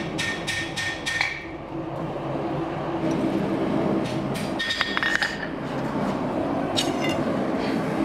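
Hammer blows ringing on mild steel at the anvil, about four quick strikes in the first second and a half, followed by a few lighter metallic clinks over a steady low hum.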